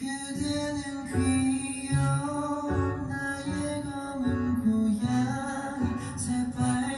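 K-pop song playing, with guitar and a pulsing bass line.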